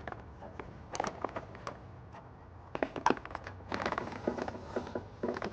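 Scattered light clicks and crinkling plastic rustles as the trailer harness's power wire is handled and routed by hand.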